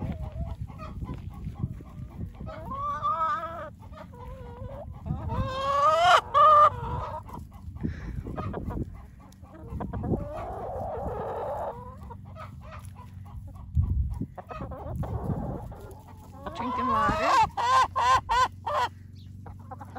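Flock of hens clucking and calling, with a loud drawn-out call about six seconds in and a quick run of repeated calls near the end.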